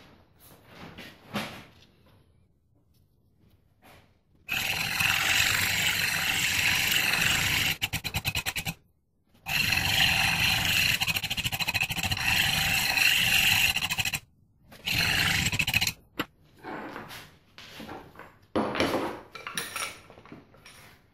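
A small corded handheld power tool is worked against the steel axe head in three runs that start and stop sharply: one of about three seconds that stutters as it ends, a longer one of about five seconds, and a short one. Softer scrapes and knocks follow.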